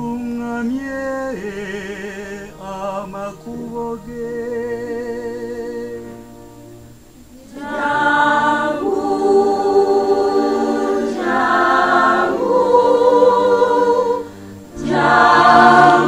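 A solo male voice sings a slow line with vibrato into a microphone. After a short pause, about halfway through, a women's choir comes in louder, singing full chords with vibrato, with a brief break near the end.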